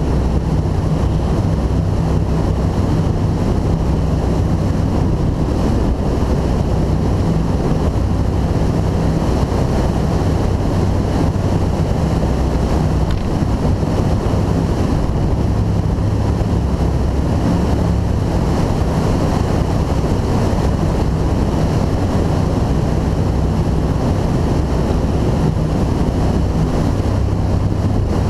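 2002 Formula 292 Fastech powerboat running at speed: a steady low engine drone under rushing water from the hull and wind buffeting the microphone.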